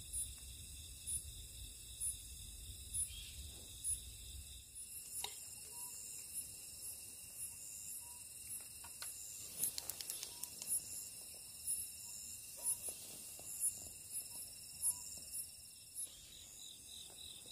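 Night insects calling: a regular high chirp about twice a second over a steady high trilling of other insects, with a few faint clicks near the middle.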